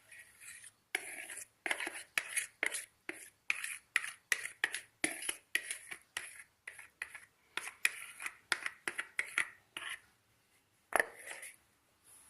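Spatula scraping thick cake batter out of a mixing bowl into a cake tin: a quick run of short scraping strokes, two or three a second, then a single knock near the end.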